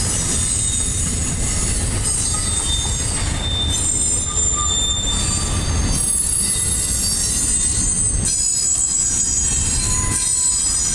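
Cars of a CSX freight train rolling past: a steady low rumble with thin, high-pitched wheel squeal ringing over it.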